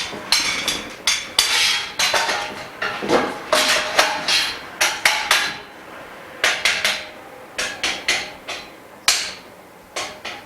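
Frame bars of a dust-free room being knocked together into place: an irregular run of sharp, ringing knocks, packed closely for the first few seconds, then pausing briefly and coming more spaced out.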